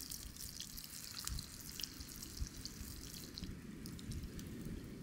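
Battered onion rings frying in hot oil in a pan over a campfire: a steady sizzle with many small pops and crackles.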